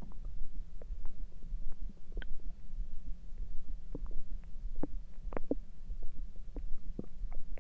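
Human stomach gurgling: many short, squeaky gurgles scattered over a low, repeating thump.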